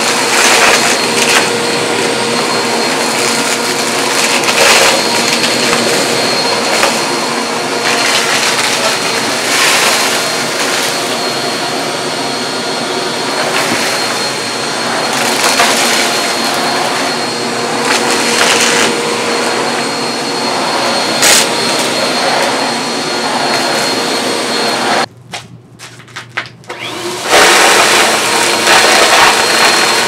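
Bissell CleanView Compact Turbo upright vacuum running steadily, its noise swelling and easing every couple of seconds. It cuts out for about two seconds near the end, then comes back at full level.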